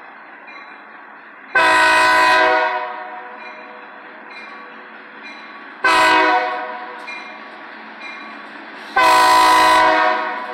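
GE B23-7 diesel locomotive horn sounding for a grade crossing as the train approaches: a long blast, a short blast about four seconds later, and a second long blast near the end, with the locomotive's engine running in between. A crossing bell dings faintly about once a second between the blasts.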